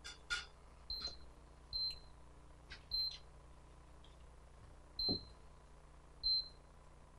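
Portable induction cooktop's touch controls beeping as the heat is set: five short, high beeps spaced one to two seconds apart, after a couple of clicks.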